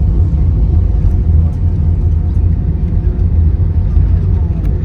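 Steady low rumble of an airliner heard from inside the cabin while it taxis after landing: the jet engines at idle and the wheels rolling on the taxiway, with a faint steady hum above the rumble.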